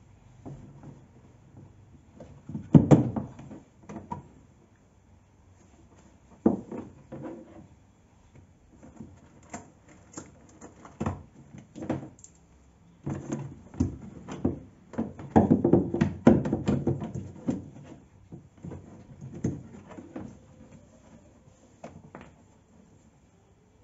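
Irregular knocks, thuds and clatter, as of objects being handled and set down. The loudest clusters come about three seconds in and again around the middle.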